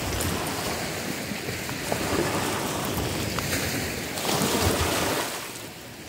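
Small sea waves breaking and washing up onto a sandy shore, with one louder surge about four seconds in that falls away near the end.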